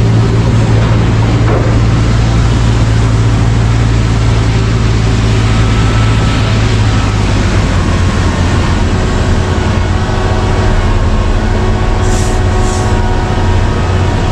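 Large diesel engine of a Komatsu PC1350-11R mining excavator running steadily at work, with a deep even hum. Two brief high clinks come near the end.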